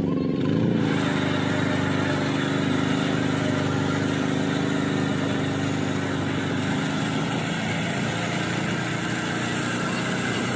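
Power tiller's single-cylinder diesel engine running steadily under load as the vehicle drives through a muddy paddy field.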